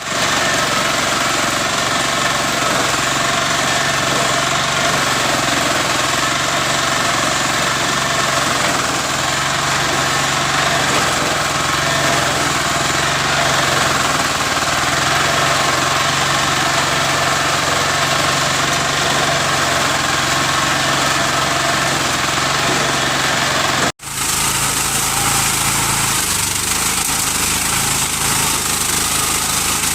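Walk-behind single-row corn harvester running, its small engine making a loud, steady drone. It drops out for an instant near the end, then carries on with a slightly different tone.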